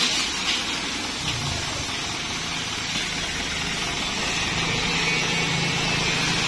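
Isuzu Elf dump truck's diesel engine running steadily to drive the tipper's hydraulics, with crushed stone hissing and rattling as it slides out of the raised bed.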